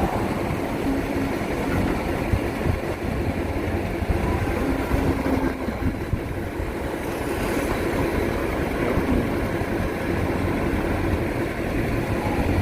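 Excavator's diesel engine running steadily under work, a continuous low rumble with a few brief steady tones rising above it.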